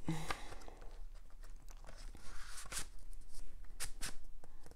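Cardboard LP jacket and paper inserts rustling and scraping, with small irregular clicks, as the jacket is opened and its tightly packed contents are worked out.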